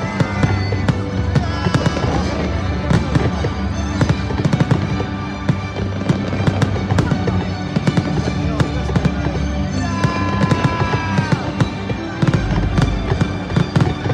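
Aerial fireworks display: rapid, dense bangs and crackling of shells bursting overhead, over music with a steady, sustained bass.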